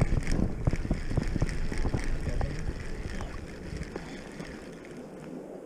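Low thumping and rustling handling noise right at the microphone as a fishing rod and reel are worked, dying down after about three seconds to a softer hiss.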